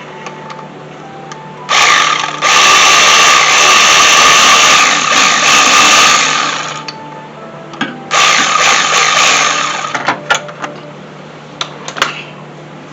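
Power tool fitted with a 12 mm socket running in two bursts, a long one of about five seconds and a shorter one of about two seconds, backing out an AC compressor mounting bolt, with a few sharp clicks around them.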